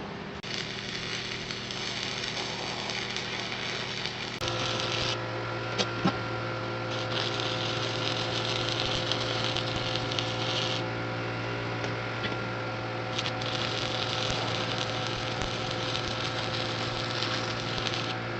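A small motor running with a steady hum that steps up louder about four seconds in, with on-and-off hissing over it and two sharp clicks shortly after.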